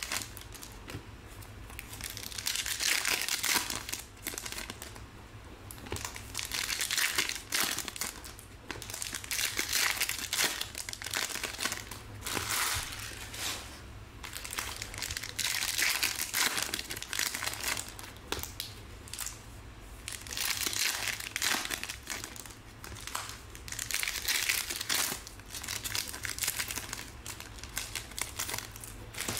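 Foil trading-card pack wrappers of Select Soccer cards crinkling in repeated bursts every couple of seconds as the packs are opened.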